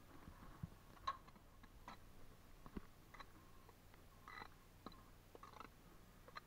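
Faint, scattered clicks and short scrapes of a steel trowel working mortar onto a brick, with a light tap about a second in.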